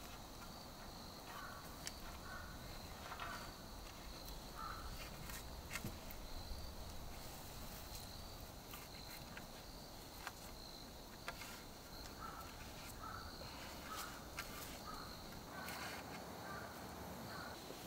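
Faint forest ambience: a steady high insect drone, short bird calls here and there that come in clusters early and near the end, and scattered light knocks and clicks as wooden poles are handled and lashed.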